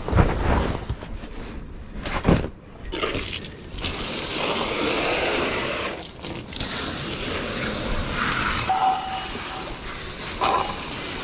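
Hose spraying water onto a boat's deck: a steady hiss of spray that starts a few seconds in and breaks off briefly midway. A couple of knocks come first as the hose is handled.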